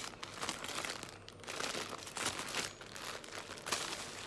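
Bag or packaging crinkling and rustling unevenly as it is handled.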